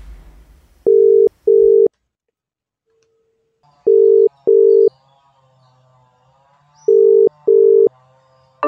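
Telephone ringback tone heard through a phone earpiece: three double rings about three seconds apart, each a pair of short steady beeps, the call ringing at the other end.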